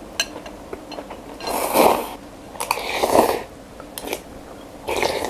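Close-up eating sounds: three slurps of noodles and broth of chicken noodle soup off a spoon, with a few light clicks between them.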